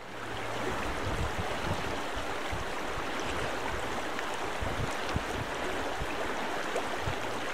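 Shallow river rushing steadily over a gravel bed, a continuous even wash of water noise that fades in at the start, with irregular low rumbles underneath.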